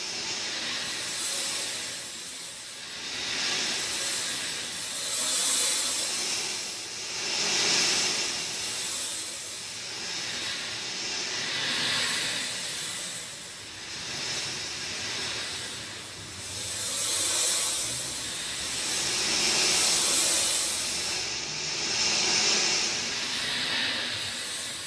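Rain falling: a steady hiss that swells and eases every few seconds.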